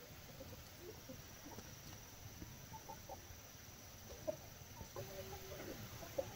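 A flock of hens and roosters clucking, short scattered calls that come thicker about halfway through, with one longer call near the end.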